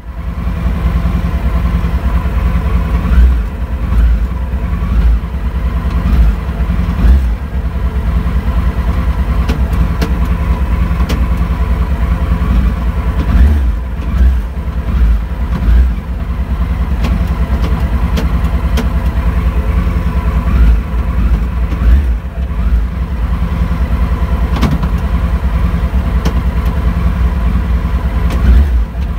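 Motorcycle engine in a race car idling, with a string of short throttle blips, some a second apart, from a homemade downshift blipper pulling on the throttle cable.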